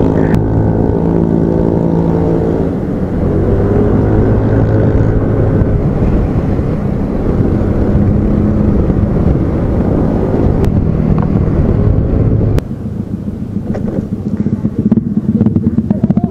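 Motorcycle engines running while riding, pitch sliding up and down a few seconds in. About twelve seconds in the low rumble drops off suddenly and the sound gets quieter.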